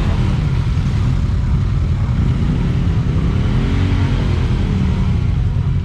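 Polaris RZR Turbo XP side-by-side's turbocharged engine running hard under load. The revs climb from about two seconds in, peak around four seconds, then fall away.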